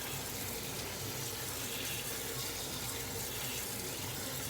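Kitchen tap running hot water steadily onto cabbage leaves in a strainer in the sink.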